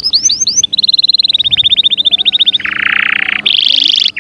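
Domestic canary singing a run of song phrases. A few rising whistled notes give way to a fast trill, then a lower buzzy rattle about two and a half seconds in, then a higher rapid trill that cuts off just before the end.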